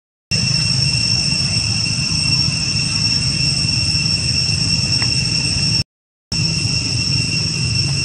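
Steady outdoor background noise: a constant high-pitched whine over a low rumble, cut off twice by brief silences about half a second long.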